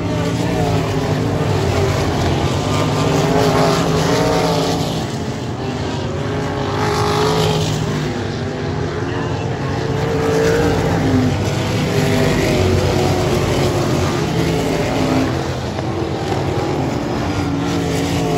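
Several open-wheel dirt-track race cars racing around the oval, their engines at high revs, the pitch rising and falling as they pass and go through the turns.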